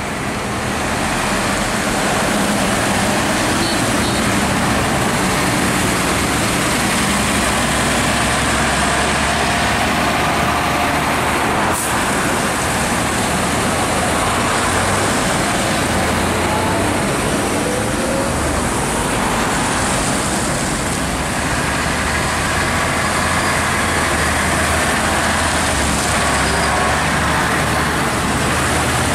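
Procession of big modern diesel farm tractors, John Deere and Fendt among them, driving past one after another with cars in between: a steady, loud mix of engines running and tyre noise on wet tarmac.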